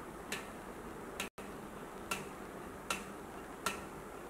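Rubber band stretched around a metal cup being plucked over and over, giving a faint, short click about once a second. Each pluck sets the band vibrating, and that vibration makes the sound.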